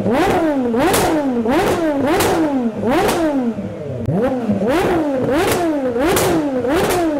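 Aston Martin Vulcan's 7-litre V12 being blipped hard while stationary: about ten quick rises and falls in revs, with a sharp crack near most peaks as it shoots flames from its side exhausts.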